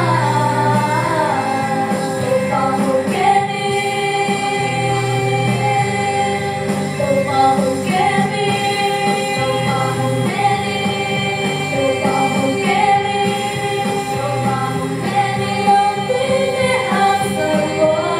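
Four women singing a slow gospel song together through microphones and a PA, with long-held notes.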